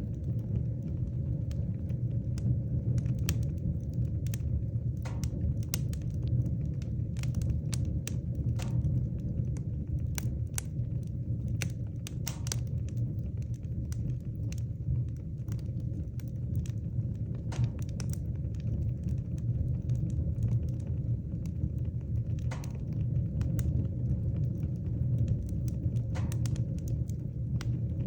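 Wood fire burning in a fireplace: a steady low rumble with irregular sharp crackles and pops from the burning logs.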